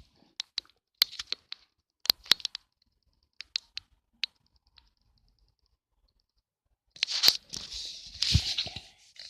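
Irregular sharp clicks and taps, then about two seconds of rustling and scraping starting about seven seconds in.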